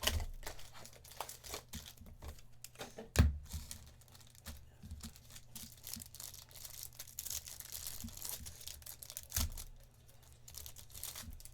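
Trading card pack wrappers being torn open and crinkled, with cards shuffled and handled; a sharp thump about three seconds in and a smaller one near the end.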